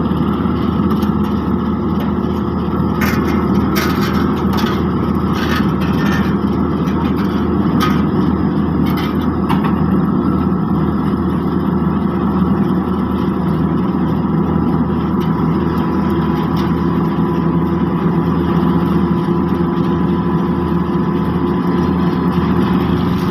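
Diesel engines of asphalt paving machinery running steadily, with scattered clanks and knocks through the first half.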